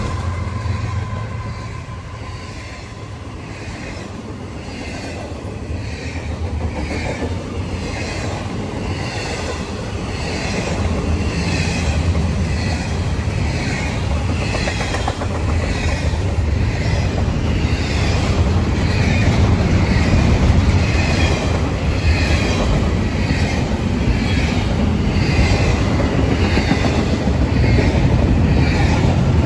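Freight train of double-stack intermodal container cars rolling past close by: a steady low rumble with wheels clicking over the rail about once a second, growing slowly louder. A steady tone fades out in the first second.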